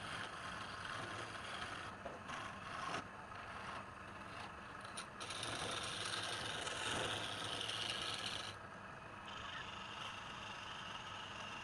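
Wood lathe running with a turning tool scraping against the spinning wood. The cutting gets louder and brighter for about three seconds in the middle.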